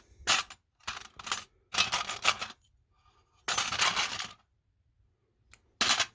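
Small metal sewing-machine tools and attachments clinking and rattling as they are handled, in five short clusters of clatter separated by pauses.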